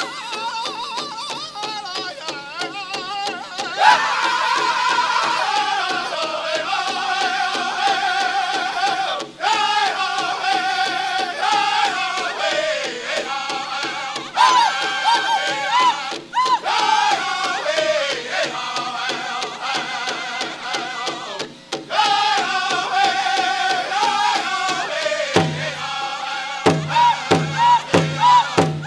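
Powwow drum group singing a Prairie Chicken dance song: men's high voices in falling, wavering phrases over a steady beat on the big drum. Near the end the drum gives loud, heavy strokes spaced with short gaps.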